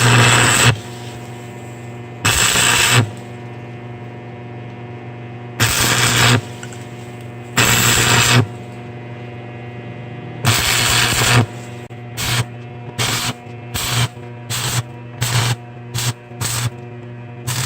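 Electric welder tack-welding steel chain links: five crackling bursts of arc, each half a second to a second long, then a quicker run of short tacks about every half second near the end, over a steady electrical hum.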